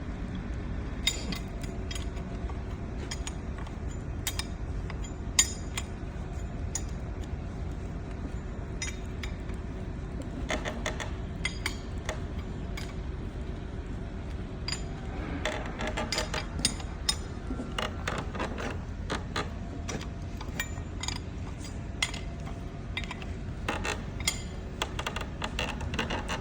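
Metal hydraulic pump parts and hand tools clinking and knocking in scattered, irregular clicks, busiest in the second half, over a steady low hum: hand work dismantling and reassembling a hydraulic pump.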